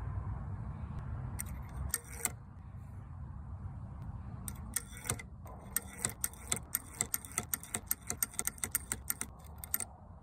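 Rapid light metallic clicking and rattling, growing denser about halfway through, over a steady low rumble.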